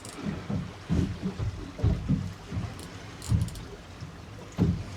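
Water slapping against the hull of a small boat rocking on a choppy sea: irregular low thuds about every half second to second over a steady wash of wind and water, with a few light clicks near the middle.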